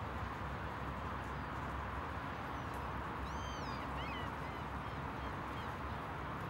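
Steady outdoor background hiss, with a bird giving a few short, high, arching and falling calls about halfway through.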